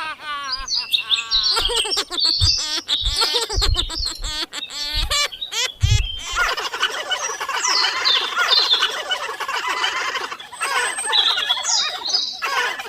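Small birds chirping and squawking in quick, repeated calls, with a few low thumps in the first half. About halfway through, the calls turn into a dense, continuous chatter.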